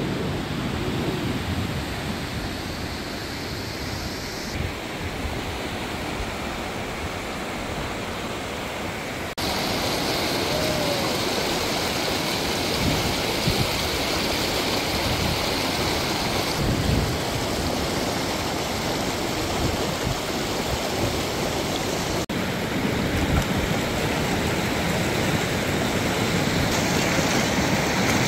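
The Ganges river rushing past: a steady noise of flowing water that shifts abruptly in level a few times.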